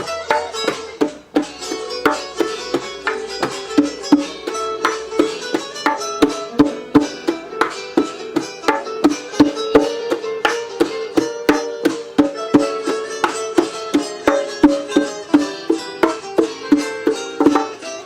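Instrumental music with no singing: plucked strings over a fast, regular percussive beat and a held note.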